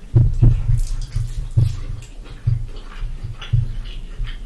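Chewing of crispy fried chicken and fries close to a microphone: irregular soft low thumps with a few sharp clicks.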